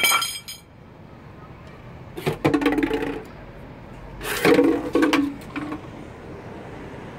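Young common kestrels give a shrill, rapid kee-kee call right at the start. About two and four seconds in come two louder, rough bursts, each about a second long, as the birds get ready to fly off.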